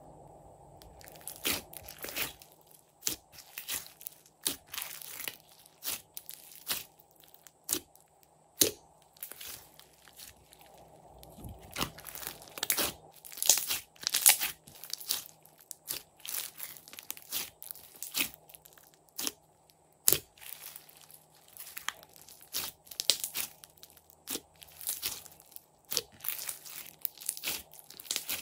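Floam slime packed with foam beads being kneaded and squeezed by hand: irregular crunching and crackling as the beads pop and the slime tears and folds, loudest around the middle.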